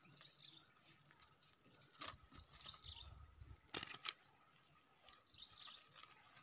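Near silence outdoors: faint bird chirps now and then, and a few sharp clicks as the fishing pole and line are handled.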